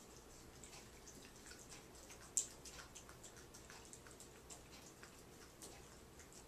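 Two opossums licking and smacking, faint irregular wet clicks, with one sharper click about two and a half seconds in.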